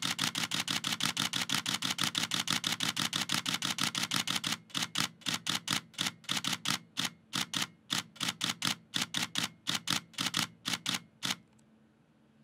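Nikon D7200 DSLR shutter and mirror firing a continuous burst, rapid even clicks at about six frames a second. About four and a half seconds in the buffer fills and the clicks slow to an uneven two or three a second as the camera writes to the card, then stop about eleven seconds in.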